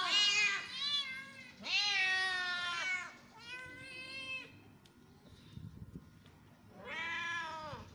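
Hungry domestic cats meowing for food: a run of four long, drawn-out meows, then a pause and one more meow near the end.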